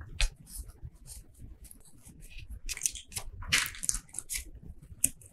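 Irregular rustling and scratching of paper as a hand-sewn paper booklet is handled and its thread pulled through, mixed with a pen writing on paper; the busiest stretch comes about three and a half seconds in.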